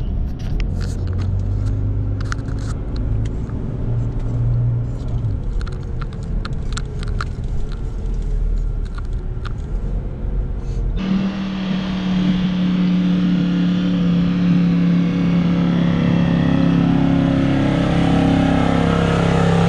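Inside a 4WD's cabin while driving on beach sand: low engine and tyre rumble with scattered light rattles and clicks. About eleven seconds in it cuts to a 4WD ute's engine running steadily as it pulls through soft sand.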